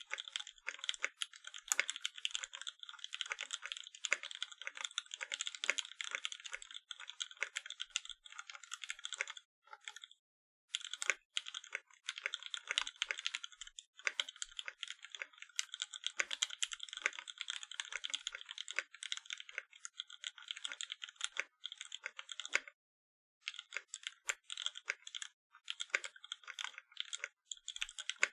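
Continuous fast typing on a Percent Canoe 60% mechanical keyboard with vintage Cherry MX Black linear switches lubed with Krytox 205g0: a dense stream of key clacks. Typing stops briefly about ten seconds in and again with about five seconds to go.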